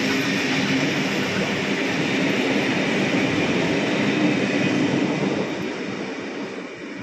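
Excursion train's heritage passenger carriages rolling past, a steady rumble and clatter of steel wheels on the rails. The sound fades from about five seconds in as the last carriage draws away.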